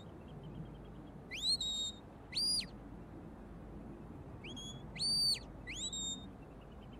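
Sheepdog handler's whistle commands to his working dog: about five short high whistles, some sliding up and held, others rising, held and dropping away. The calls are steering the dog around the sheep.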